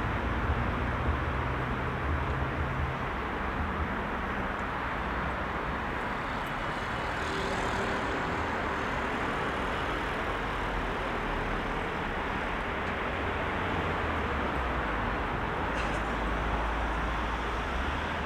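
Heavy rush-hour road traffic: a steady mix of engines and tyre noise from many passing cars, with a deeper engine rumble in the first few seconds.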